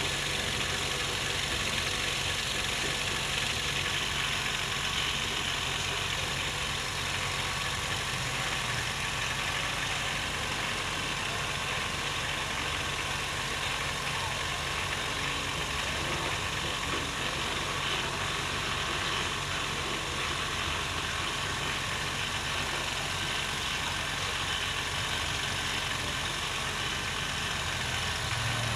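A steady mechanical drone with a low hum, like a motor or engine running, unchanging throughout.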